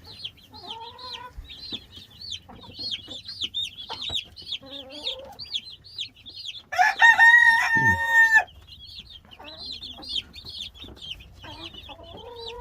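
Chicks peeping steadily in a quick high chatter, with adult chickens clucking now and then. About seven seconds in, an adult chicken gives one loud, drawn-out call lasting under two seconds.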